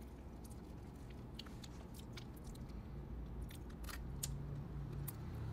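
Close mouth sounds of eating small steamed crab: chewing and sucking meat from the legs, with scattered soft clicks and crunches of shell. A low steady hum comes in about four seconds in.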